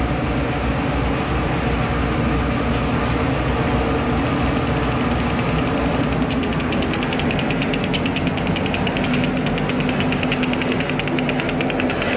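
Freight train running past close by: a steady rumble and hum under a rapid, even rattling clatter that grows sharper about halfway through.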